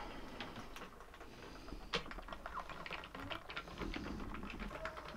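Chickens pecking and scratching in the coop's straw bedding: a quiet, irregular patter of small ticks and rustles, with one sharper tick about two seconds in.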